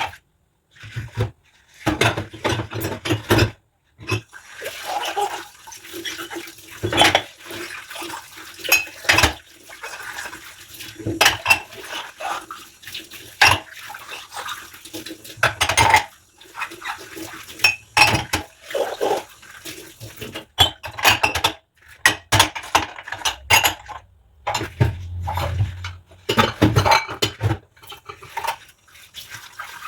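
Dishes and cutlery clinking and knocking as they are washed by hand, with some water sounds between the knocks.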